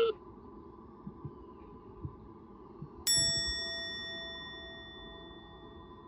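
The tail of a sika deer stag's rutting call cuts off right at the start. About three seconds in, a single bell-like chime sound effect is struck once and rings on, fading slowly.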